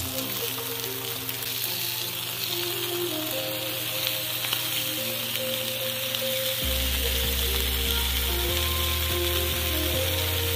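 Hamburger slider patties sizzling steadily on a hot flat griddle, under background music whose deep bass comes in about two-thirds of the way through.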